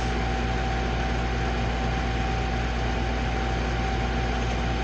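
A steady mechanical hum with even hiss and a thin constant tone, unchanging throughout.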